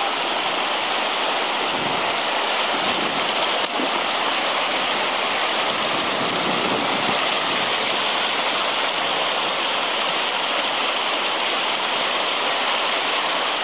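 Fast, shallow river running over a stony bed: the steady rush of riffles and small rapids.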